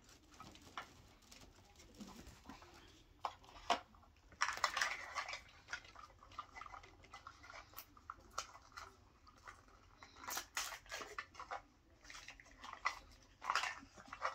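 Small plastic packaging crinkling and rustling as hands unwrap a Mini Brands miniature, in several short bursts with a few sharp clicks.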